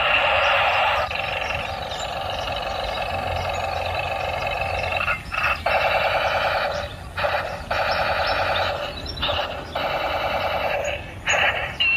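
Battery-powered toy army tank playing electronic sound effects through its small built-in speaker, a fast repeating pattern that cuts out briefly several times in the second half.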